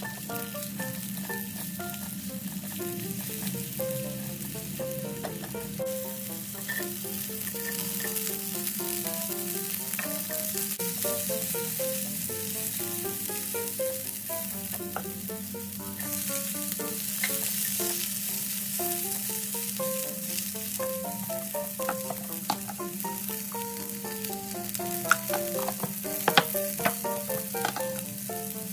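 Vegetables sizzling steadily as they are stir-fried in a pan, with a few sharp knocks near the end.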